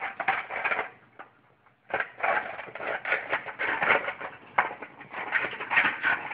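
European badgers chewing and crunching food from a metal tray close by, in quick crackly bites. There is a burst of crunching at the start, a brief pause, then almost continuous munching from about two seconds in.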